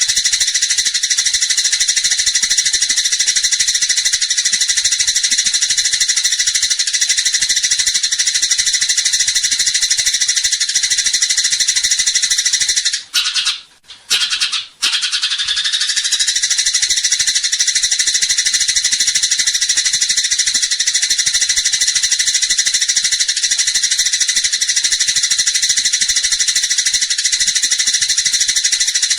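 Eurasian tree sparrows in a dense, fast, unbroken high-pitched chattering, the 'tarung' (fighting) call, with one short break of about a second and a half near the middle.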